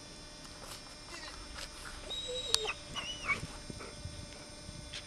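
Dog whimpering in a few short, high whines, bunched in the middle, with some faint clicks.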